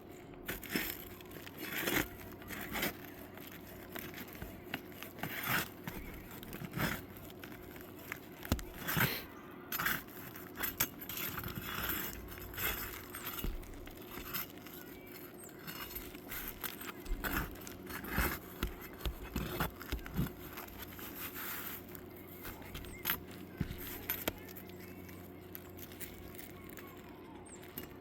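Irregular scraping, clicking and squeaking of hand-tool work on asphalt roof shingles, such as prying up and loosening shingles.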